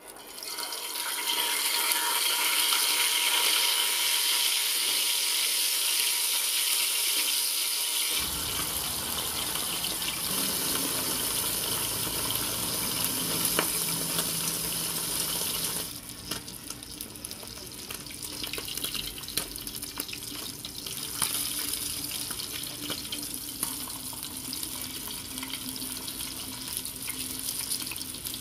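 Whole crappie frying in hot oil in a pan: a loud sizzle that starts as the fish go in, then drops to a quieter, crackling sizzle about halfway through.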